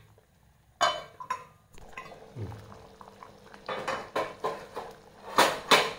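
A steel lid and a metal spoon clinking against a clay cooking pot as a curry is uncovered and stirred: about six sharp clinks, the first about a second in.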